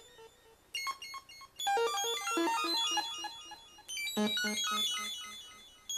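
Homemade STM32F4 Discovery board synthesizer playing a band-limited sawtooth-wave oscillator: a rapid run of short notes at random pitches, about five a second. The sound starts and stops several times as the player's two hands make the contacts.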